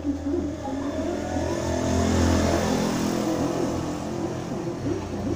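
An engine running, its pitch wavering up and down over a steady low hum.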